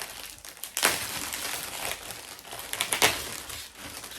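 Packaging crinkling and rustling as it is handled and pulled off a new automatic pond feeder, with louder rustles about a second in and again about three seconds in.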